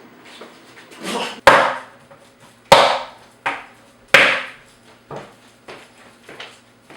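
A series of sharp knocks with short fading tails: three loud ones about a second and a half apart, then several fainter ones.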